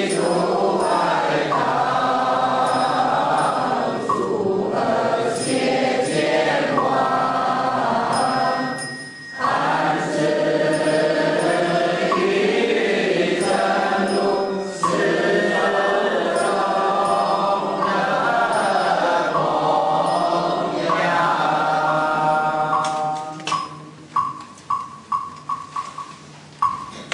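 Voices chanting in unison, a Buddhist liturgical recitation with a rising and falling melodic line. About 23 seconds in the chant ends and a quick run of light, ringing ticks follows, about three a second.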